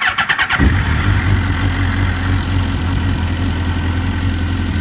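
Suzuki GSX-R1000 K1's inline-four engine being cranked on the electric starter, catching about half a second in and then idling steadily.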